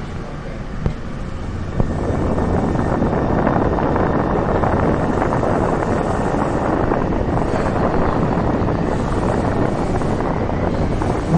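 Taipei Metro train pulling out of a station, heard from inside the car: a couple of clicks, then about two seconds in the rumble of the moving train swells into a steady running noise as it picks up speed.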